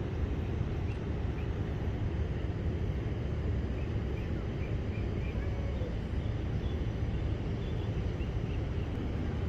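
Steady low outdoor rumble with a few faint, short bird chirps midway.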